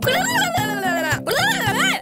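A cartoon character's high-pitched wordless squeals, sounding cat-like, over children's cartoon music: one long wavering call, then two shorter calls that rise and fall.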